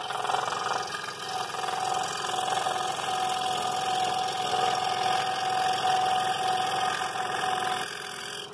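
Scroll saw running with its blade cutting into thin wood, clearing a small hole in the waste so the workpiece can be turned for a sharp corner. A steady mechanical buzz, with a humming tone joining about a second in and dropping away near the end.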